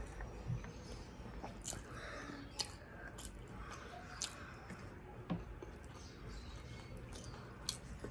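Close-up chewing of a mouthful of food, with wet lip smacks and mouth clicks. Five sharp smacks come about a second or two apart.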